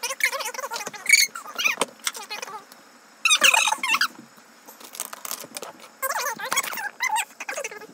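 A person's voice making unintelligible talk and high-pitched vocal sounds, with a louder, high-pitched outburst about three seconds in.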